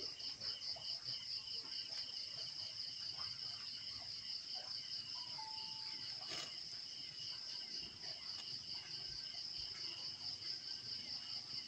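A chorus of night insects trilling steadily in a fast pulsing rhythm, with a single faint click about six seconds in.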